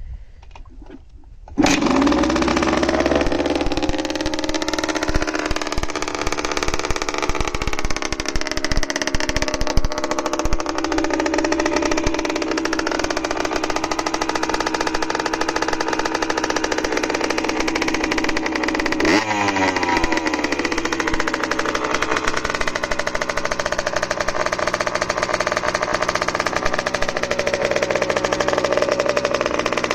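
1983 Kawasaki KX60's small two-stroke single-cylinder engine starting suddenly about two seconds in, then running steadily, with a brief rev a little past the middle.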